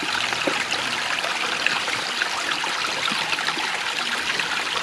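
Small creek trickling steadily over stones.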